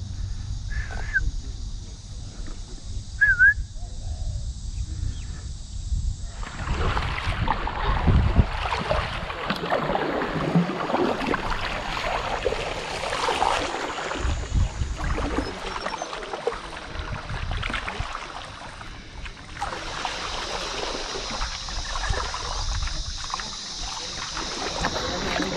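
Kayak paddle strokes splashing and water washing past the hull, starting about six seconds in, over a low rumble of wind on the microphone. Two short bird chirps in the first few seconds, before the splashing.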